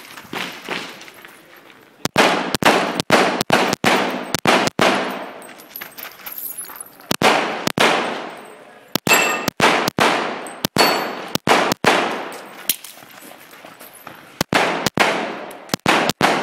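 Custom STI pistol fired in rapid strings, several shots a second, about two dozen sharp cracks in all, each with a ringing echo. Three bursts of fire with short pauses between them.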